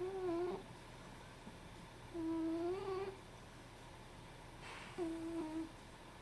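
A sleeping cat snoring: three humming, whistle-like snores, one at the start, a longer one about two seconds in, and another about five seconds in, each a steady note with a slight wobble.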